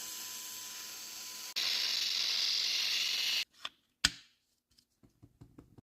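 Power grinder grinding a Kydex sheath to shape: a steady hiss that grows louder and brighter for about two seconds, then cuts off. A single sharp click follows, then a few light ticks.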